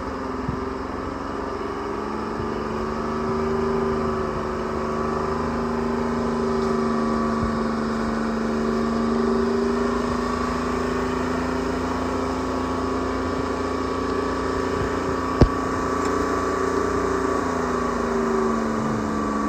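Treefarmer C5 forwarder's engine running steadily, with one sharp knock about fifteen seconds in.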